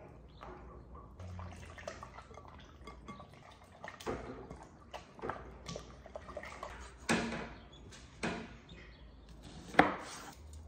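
Hands squishing raw chicken pieces in a glass bowl as they are coated with cornstarch and egg, with wet squelching and several knocks of the bowl on the countertop. Near the end comes a louder knock of a knife on a wooden cutting board.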